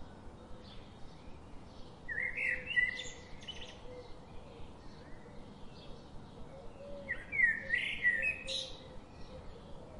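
Songbird singing: two bursts of quick chirping, warbling phrases, about two and seven seconds in, with scattered single chirps between them over a faint steady background.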